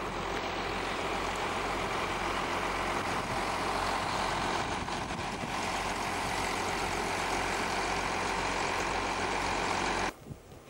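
Diesel railmotor engine running steadily with a low hum; the sound cuts off suddenly near the end.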